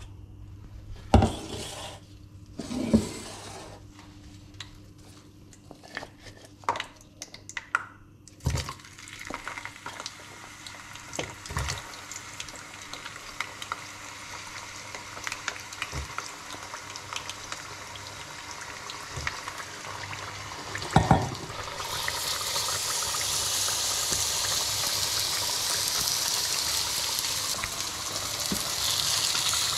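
Metal bowls and pans clinking and knocking, then potato sticks frying in a saucepan of hot oil with a steady sizzle. After a knock about two-thirds of the way through, a louder, hissier sizzle starts as chicken fries in the frying pan alongside.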